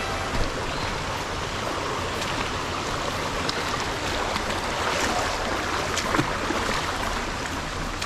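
Shallow mountain stream rushing steadily over rocks, with a few sharp knocks, the loudest about half a second in and about six seconds in.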